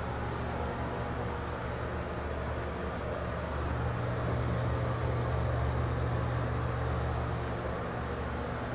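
Small Broan ceiling exhaust fan running, working normally: a steady low motor hum with airflow rush, swelling slightly near the middle.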